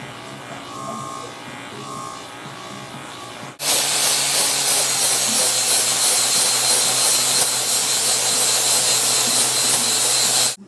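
Background music, then about a third of the way in a handheld angle grinder starts up loud on metal at the workbench, a steady harsh grinding with a whine, cutting off suddenly near the end.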